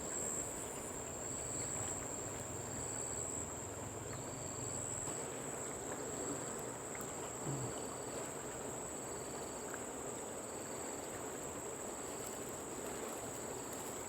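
Insect chorus: a steady high-pitched buzz with short chirps repeating about once a second. A faint low hum underneath fades out about five seconds in.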